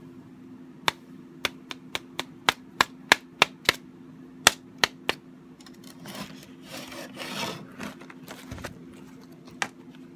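About a dozen sharp taps over four seconds as a spiral-bound art journal is knocked against a plastic tray to shake off loose embossing powder, followed by a couple of seconds of rubbing and scraping and one last tap near the end.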